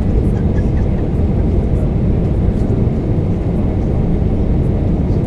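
Airbus A320 cabin noise on the descent to landing, heard at a window seat over the wing: the steady rush of airflow and the IAE V2500 turbofan engines, heavy in the low end and unchanging.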